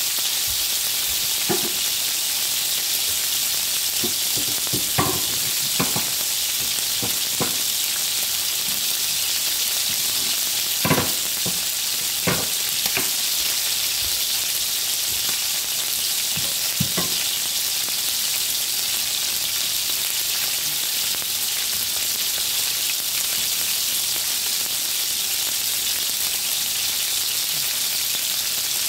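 Chicken breasts frying in oil in a cast-iron grill pan: a steady sizzle, with a handful of sharp pops in the first half, the loudest about eleven seconds in.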